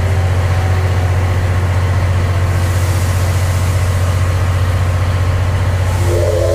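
Steady, loud low mechanical hum from the steam train standing at the platform, with a hiss building from a few seconds in. Near the end the steam locomotive's whistle starts to blow, the usual departure signal.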